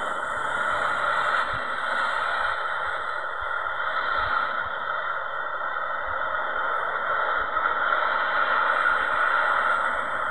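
Steady rushing roar of a KLM Boeing 777's jet engines as the airliner rolls out on the runway after touchdown, spoilers raised. The roar swells and eases gently without a break.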